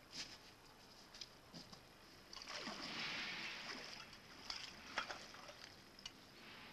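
Footsteps in wet slush and shallow floodwater: a few soft, separate steps, and about two and a half seconds in a louder splashy rush that lasts about two seconds.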